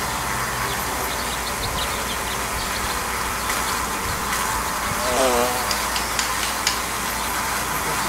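Honeybee swarm buzzing steadily, with one bee passing close about five seconds in as a louder, wavering buzz. A few light ticks come near the end.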